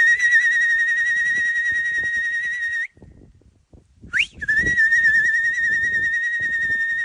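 A person whistling two long, steady, high notes of about three seconds each, with a short rising whistle between them. Under the whistles are soft thuds and scuffs of a bull pawing and horning loose dirt.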